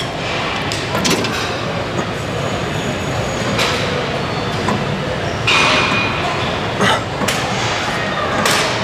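Gym weights clanking and rattling several times during a set of rows, over a steady background hum.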